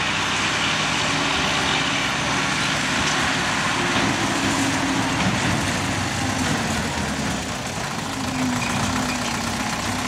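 Diesel engine of a Belarus MTZ tractor running steadily as it drives past towing a tipping trailer.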